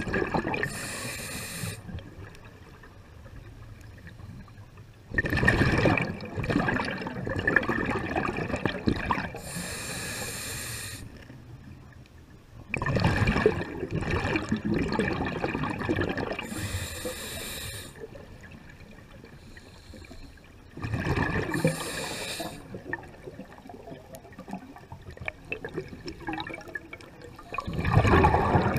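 Scuba diver breathing through a regulator underwater: a sharp intake followed by a rumbling rush of exhaled bubbles, a breath about every eight seconds, four in all.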